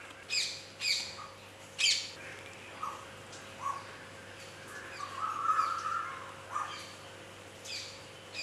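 A bird calling with about six short, falling calls and a longer whistled note about five seconds in. Under it runs the faint hiss of namak pare dough strips frying in hot oil.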